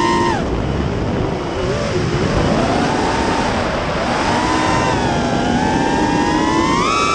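FPV quadcopter's brushless motors and propellers whining, the pitch rising and falling with the throttle over a rush of air. It drops sharply right at the start, climbs steadily through the rest, and chops off at the end. The quad on its new Martian frame still oscillates at mid-throttle, which the owner now puts down to the props rather than the motors.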